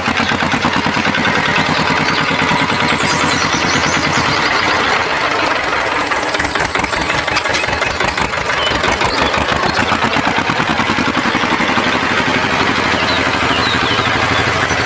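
A small motor running steadily with a fast, even rattle.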